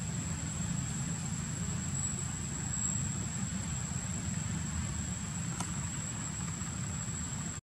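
Steady low outdoor background rumble with a thin, constant high-pitched whine over it and one faint click about five and a half seconds in; the sound cuts out abruptly at the very end.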